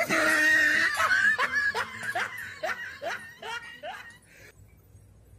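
A person laughing: a loud first burst, then a run of short 'ha' bursts about three a second that fade and cut off about four and a half seconds in.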